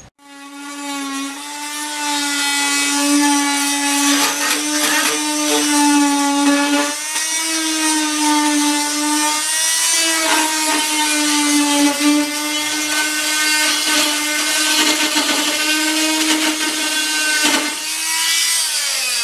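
Corded oscillating multi-tool buzzing as it cuts into a trailer's sheet-metal siding, its pitch dipping slightly under load, with the blade rasping against the metal. It starts suddenly and begins to wind down right at the end.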